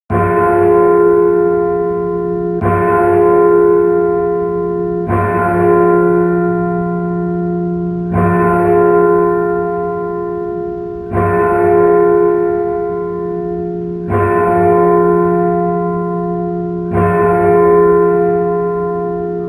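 A large church bell tolled seven times, a strike about every three seconds. Each stroke rings on with a deep hum that overlaps the next, and the last one dies away slowly.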